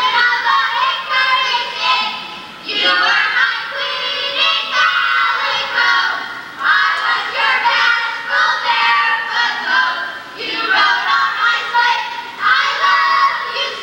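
Music with singing voices, sung in phrases a few seconds long with short breaks between them.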